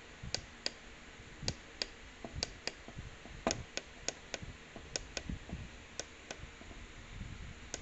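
Small push buttons on a TV motherboard tester clicking, pressed over and over, mostly in pairs about a third of a second apart, roughly one pair a second. The presses are stepping through the tester's settings to clear a solarized picture on the test panel.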